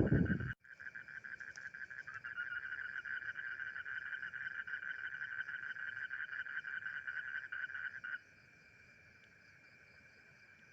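Frogs calling in a fast, pulsing trill that the uploader calls a strange frog sound, with a second caller joining about two seconds in. The louder calling stops abruptly about eight seconds in, leaving a faint trill. A brief loud low-pitched noise at the very start cuts off suddenly.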